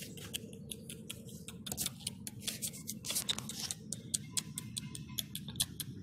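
Dry grass and fibrous nest material crackling and rustling close to the microphone as it is handled and pushed aside: a dense run of irregular sharp snaps and clicks.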